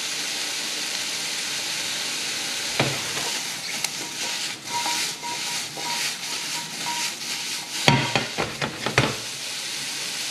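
Chopped onions sizzling as they fry in a hot pan, with a steady hiss throughout. There is a single knock about three seconds in, some irregular clatter after that, and a quick run of knocks about eight to nine seconds in.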